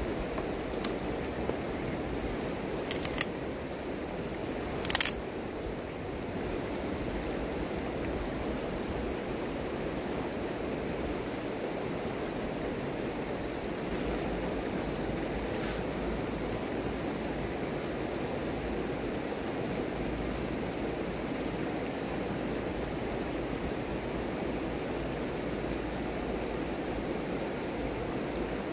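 Steady rushing of a shallow river flowing over stones, with a few sharp knocks and snaps of dry sticks being handled, the loudest about five seconds in and two more short clicks a little past the middle.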